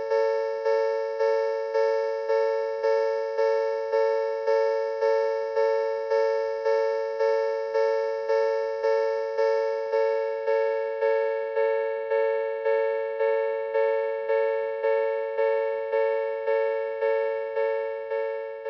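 Synthesized recreation of the old Odakyu railway level-crossing warning bell: a ringing electronic bell tone struck evenly about twice a second, the signal that a train is approaching the crossing. It begins to fade out at the very end.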